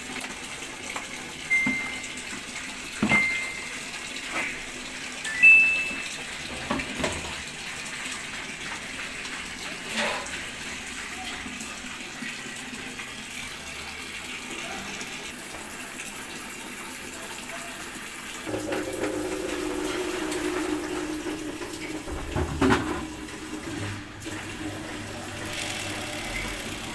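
Samsung Ecobubble washing machine filling, with water running in throughout. There are several short electronic beeps from the control panel in the first few seconds, and a steady motor hum comes in about two-thirds of the way through.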